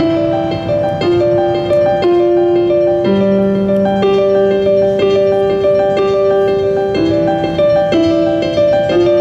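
Slow jazz: a melody of long, held piano-like notes.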